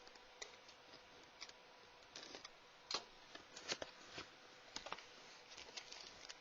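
Faint, scattered clicks and short rustles of a cardboard laptop box and its packaging being handled and opened.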